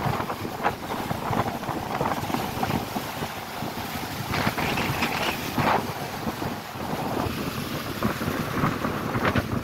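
Small, choppy sea waves breaking and splashing against rock boulders, with wind buffeting the microphone. The splashing swells a few times, about halfway through and again near the end.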